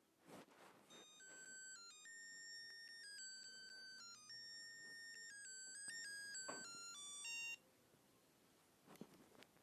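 Mitsubishi G310 mobile phone playing its ringtone, faint: a polyphonic melody of electronic beep tones stepping up and down in pitch. It runs for about six seconds and then stops abruptly, with a few soft knocks around it.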